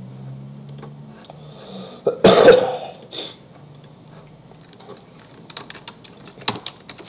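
A person coughs once, loud and short, about two seconds in. In the second half come quick clicks of typing on a computer keyboard.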